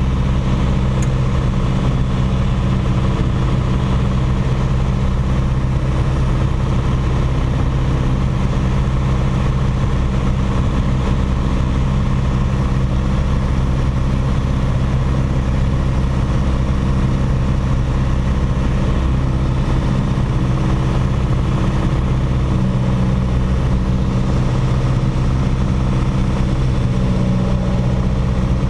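Single-engine light aircraft's piston engine and propeller droning steadily in level flight, heard from inside the cockpit, with a deep even tone and no change in power.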